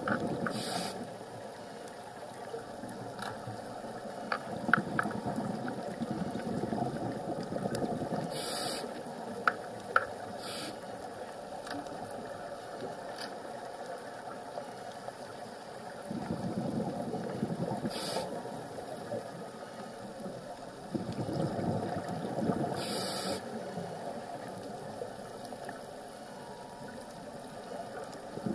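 Scuba diver breathing through a regulator underwater: exhaled bubbles rumble and gurgle for a few seconds at a time, several times over, with short high hisses between them and a few faint clicks.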